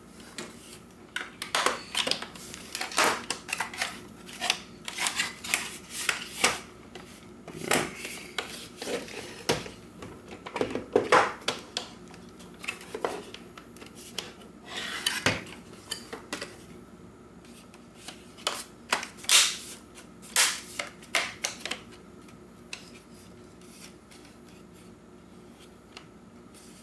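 Irregular plastic clicks and knocks as a Roomba 700-series front bumper is pressed and snapped onto the robot's chassis by hand, stopping a few seconds before the end.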